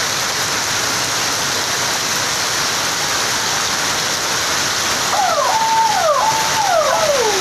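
Heavy rain pouring steadily onto the street and shop awnings, a dense, even hiss of downpour. Near the end a series of short, falling tones sounds over the rain.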